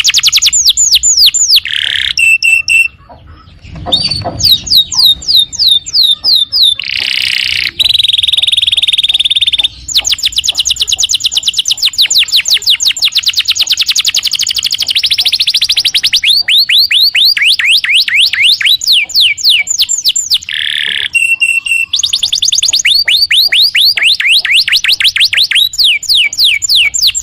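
Domestic canary in full song: long runs of rapid, repeated falling notes, with a brief pause about three seconds in and drawn-out buzzing notes around eight to ten seconds in.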